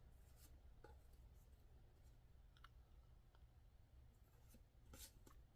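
Near silence with faint, scattered clicks and ticks of trading cards being handled, a slightly louder one about five seconds in.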